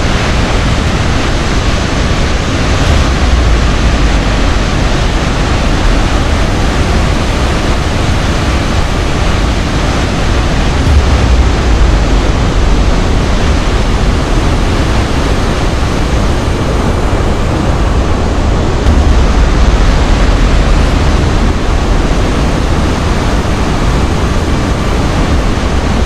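Athabasca Falls in heavy flood, swollen with snowmelt, with loud, steady rushing and a deep low rumble of the floodwater pouring over the rocks.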